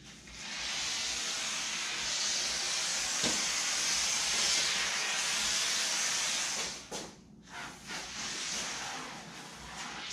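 Aerosol can of expanding foam hissing as a bead is laid through its straw onto the foam. It gives one long spray of about six seconds, then a few shorter squirts.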